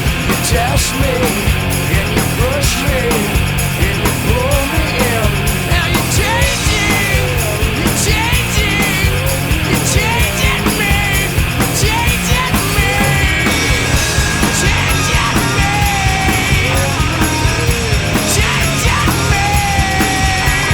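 Loud rock music with a steady driving drum beat and bending, wavering lead lines over it.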